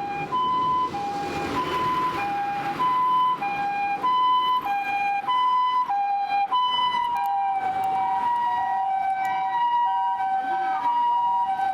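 Japanese ambulance electronic two-tone siren sounding its alternating high–low 'pee-po' call during an emergency run, each note lasting a little over half a second. About seven seconds in, a second ambulance's siren joins and the two sirens overlap out of step.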